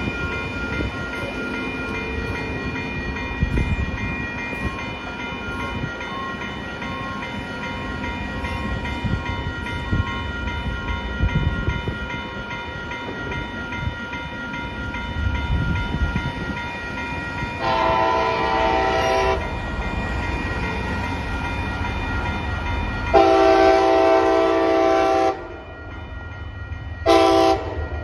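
Railroad crossing warning bell ringing steadily as a diesel locomotive approaches, then the locomotive's horn blows two long blasts and a short one for the grade crossing, the second blast the longest.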